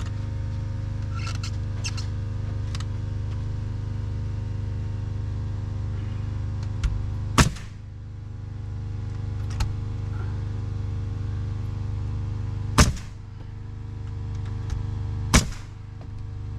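Three sharp nail-gun shots, several seconds apart, fastening siding boards, over a steady mechanical hum.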